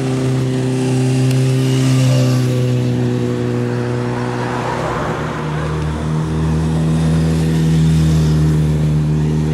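Motor vehicle engine running steadily close by, a loud even hum whose pitch shifts to a new level about halfway through.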